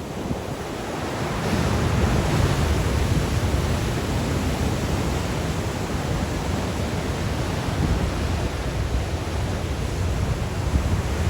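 Sea waves surging and breaking in a strong wind, with wind rumbling on the microphone. The surf swells over the first couple of seconds, then keeps up a steady rush.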